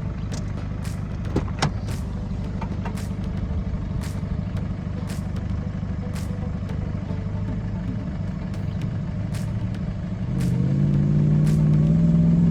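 4WD vehicle's engine running steadily under way, with repeated sharp clicks. Near the end the engine note rises and gets louder as it revs up.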